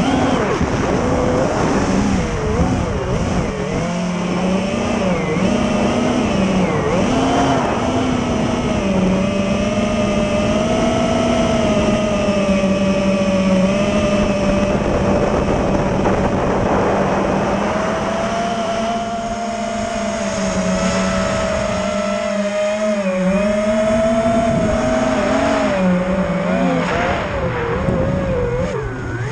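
FPV quadcopter's brushless motors whining, the pitch wavering up and down as the throttle changes, over a steady rush of air.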